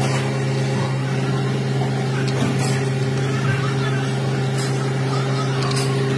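A machine's motor running with a steady hum, with a few faint clicks over it.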